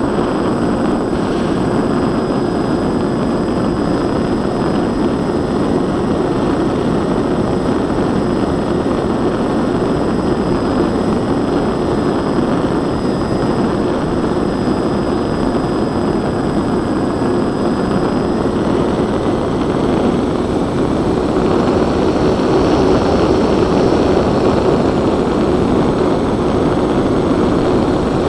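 Twin electric motors and propellers of a scratch-built Twinsurfer RC plane heard from its onboard camera: a steady drone with a constant hum under heavy wind rush over the microphone, growing slightly louder about three-quarters of the way through.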